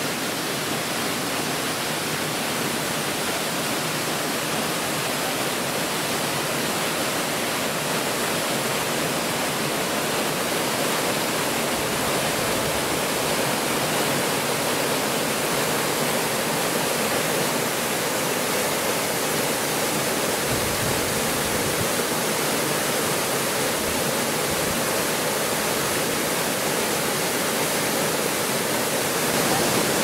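Nunobiki Falls: the steady, unbroken rush of falling water, an even hiss with no change in loudness. A brief low rumble comes in about two-thirds of the way through.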